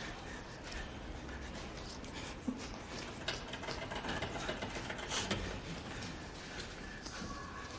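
Steady background ambience with a few scattered faint clicks and knocks, the sharpest about two and a half seconds in.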